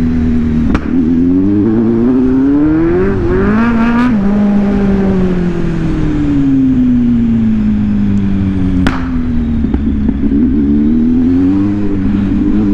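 Kawasaki Z800's inline-four engine accelerating with its pitch rising over the first few seconds, then easing off with the pitch falling slowly for about five seconds, before picking up again near the end. A few sharp clicks come at the changes in throttle.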